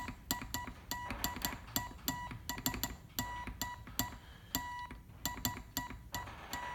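Morse code practice oscillator sounding a tone of about 1 kHz through a small external speaker, keyed by hand into short dits and longer dahs. Each tone starts and stops with a sharp click. The tone is not very loud.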